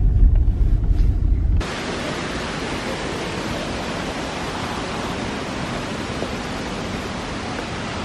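Low rumble inside a moving car, cut off suddenly about a second and a half in by the steady rushing roar of a waterfall.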